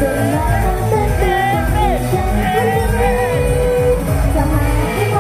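Upbeat idol-pop song with a steady beat and high female singing voices.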